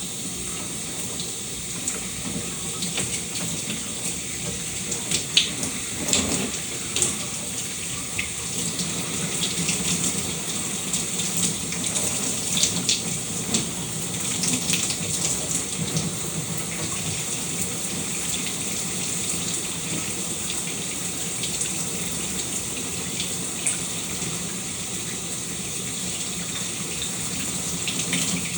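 Shower running steadily, a constant hiss of falling water with scattered small splashes and drips.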